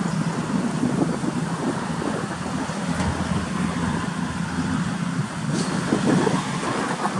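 Diesel cattle truck's engine running as it drives along the road, a steady low drone with road noise and some wind on the microphone.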